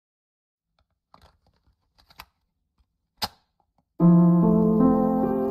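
A few faint clicks, the sharpest about three seconds in, then piano music starts abruptly about four seconds in with held chords.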